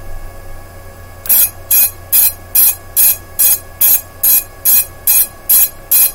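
FPV quadcopter's buzzer beeping at a steady, even rate of about two and a half high-pitched beeps a second, starting about a second in. The beeper has been switched on from the radio's beeper switch.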